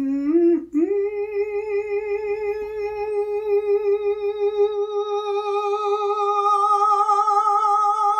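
A man's singing voice climbs the last steps of a vocal arpeggio, then holds one high note for about eight seconds with vibrato. The note grows brighter and fuller over its second half. This is a mixed-voice high-note exercise: resting on the top note, starting thin and filling it in.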